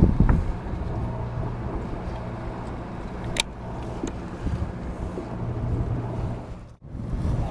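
Steady low hum of the sportfishing boat's engine. A loud rumble sits at the very start, there is one sharp click about three and a half seconds in, and the sound drops out briefly near the end.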